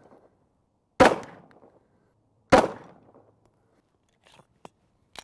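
Two 9mm pistol shots about a second and a half apart, each a sharp crack that rings out and fades over about half a second.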